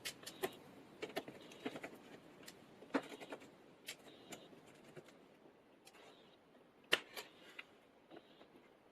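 Small precision tools clicking and tapping on a smartphone's screws and plastic internal covers during disassembly: irregular light clicks, with a few sharper ones about three seconds in and again near seven seconds.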